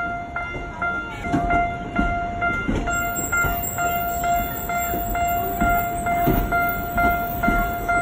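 Japanese level-crossing alarm bell clanging steadily at about two strikes a second, as a Tokyo Metro Ginza Line 1000-series electric train rolls slowly over the crossing with low knocks from its wheels.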